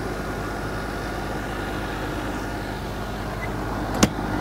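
Steady background hum, then a single sharp click about four seconds in as the latch of a motorhome's exterior compartment door snaps shut.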